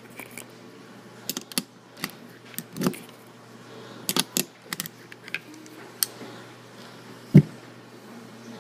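Irregular small clicks and clinks of hands handling 9mm cartridges and pistol gear at the shooting bench, with one sharp thump about seven seconds in.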